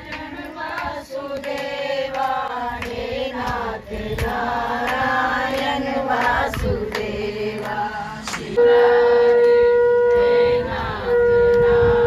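Several voices singing a devotional chant. Then, about eight and a half seconds in, a conch shell (shankh) is blown in a long, loud, steady note. It breaks off briefly and sounds again near the end.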